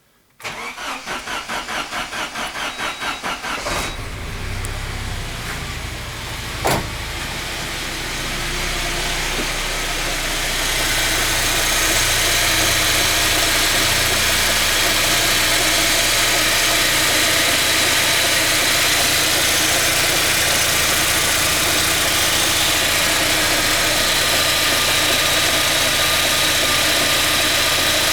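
ZMZ-409 inline-four petrol engine cranked by its starter for about four seconds, catching and running, with a single sharp click a few seconds after it starts and the running growing louder at about eleven seconds. A knock sounds with the engine and follows its revs, which the owner traces to a cracked serpentine drive belt with about 2 cm of its ribs crumbled away, slapping as the gap passes over the pulleys.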